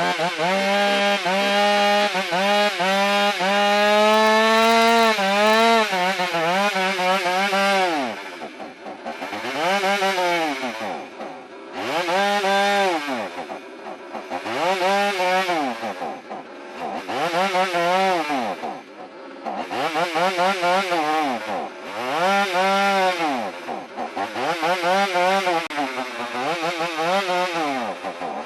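Two-stroke chainsaw engine held at high revs, wavering, for about six seconds, then revved up and let back down about every two and a half seconds, each rev a rising and falling pitch.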